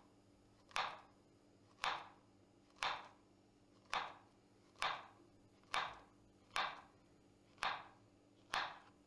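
Knife cutting food on a cutting board: nine slow, evenly spaced cuts, about one a second, each a sharp knock that fades quickly.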